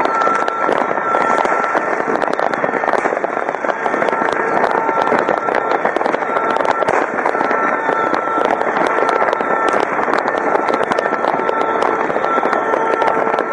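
Many aerial fireworks going off at once, bursting and crackling in a dense, unbroken barrage of bangs with no pause.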